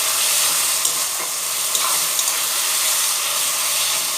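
Onion and ginger-garlic-green chilli masala sizzling in hot mustard oil while being stirred in the pan: a steady hiss with a few faint ticks.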